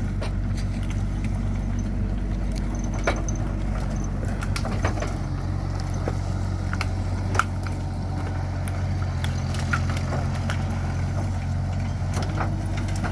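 A heavy vehicle's engine running steadily, with scattered sharp knocks, the loudest about three seconds in and about halfway through.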